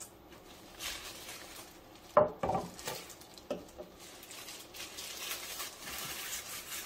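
Plastic-gloved hands rubbing oil into a cypress-wood bread board: a soft, hissing rubbing sound, with a few light knocks as the board is handled. The rubbing grows steadier over the last couple of seconds.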